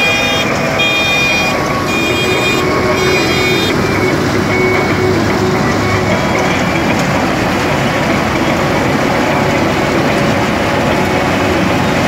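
KSA 8500 4WD combine harvester running under load, with a loud continuous noise from its diesel engine and threshing gear. An electronic beeper pulses on and off several times in the first few seconds, then stops.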